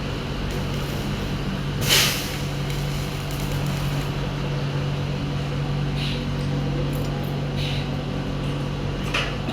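Steady low mechanical hum, with a short hiss about two seconds in and a few fainter brief bursts later.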